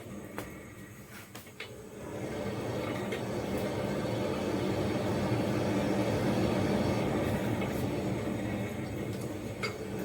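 Hand-crank forge blower whirring steadily, getting louder about two seconds in as it is cranked faster to blow air into the coal fire and reheat the metal. A few light clicks sound over it.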